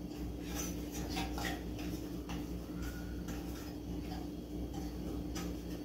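Fingers greasing the cups of a metal muffin tin: faint, irregular rubbing and light clicks of the tin, over a steady hum.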